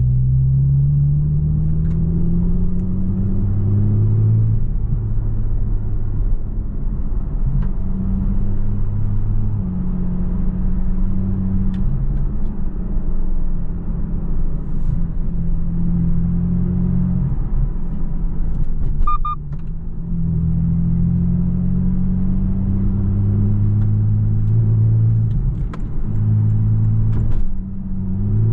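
Porsche 718 Boxster GTS 4.0's naturally aspirated flat-six engine under way, its pitch climbing then dropping at a gear change, cruising, and climbing through the gears again later on. A short double beep sounds about two-thirds of the way through.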